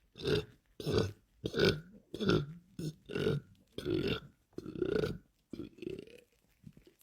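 A man belching loudly in quick succession: about seven big burps in a steady rhythm, then a few weaker, shorter ones near the end.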